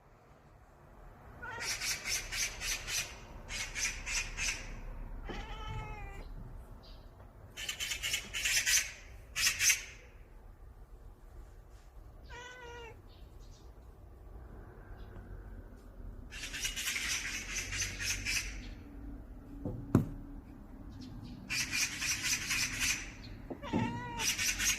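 Bursts of rapid, high bird chirping, repeated several times. In between, a domestic cat answers with three short, odd, bending meows.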